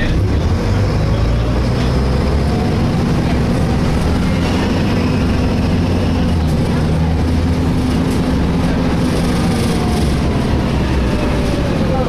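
Inside a Volvo B7LA articulated bus: the diesel engine and running gear drone steadily, with faint screeching tones that slide up and down in pitch over the top.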